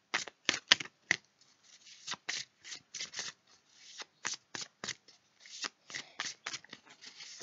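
A deck of tarot cards being shuffled by hand: a quick, uneven run of crisp card slaps, about three a second, with short pauses between bursts.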